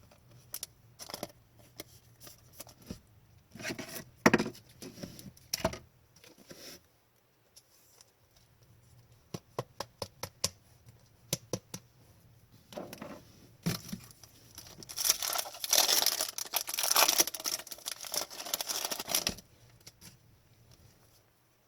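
Trading cards being handled: scattered clicks and short rustles, a quick run of ticks, then about four seconds of dense crinkling and tearing, like a card pack wrapper, about fifteen seconds in.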